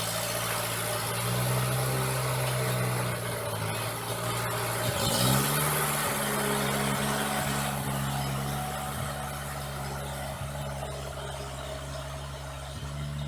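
An engine idling steadily, with a brief rise in revs and a shift in its note about five seconds in before it settles back to a steady idle.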